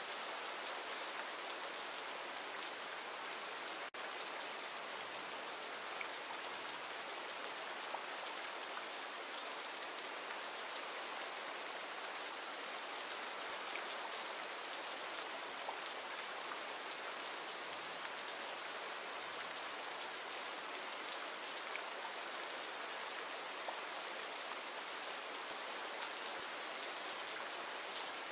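Steady rain falling in a forest: an even hiss with faint scattered drop ticks.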